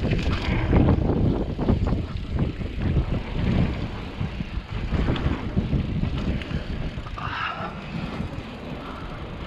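Rumble and rattle of a mountain bike riding fast down a dirt trail, picked up by a rider-mounted camera, with frequent knocks as it goes over bumps. It eases off a little about halfway through.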